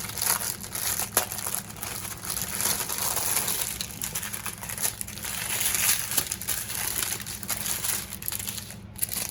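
Crinkling of small plastic packets of diamond-painting drills being handled and shuffled, an irregular crackle of many small clicks.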